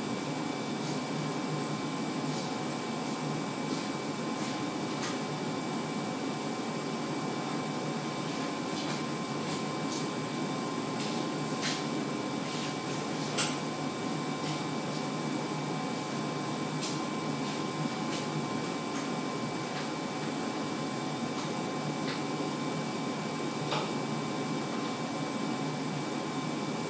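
80-watt 6090 CO2 laser engraver running while it engraves plywood: a steady machine hum with a few thin whining tones, scattered faint ticks, and one sharp click about halfway through.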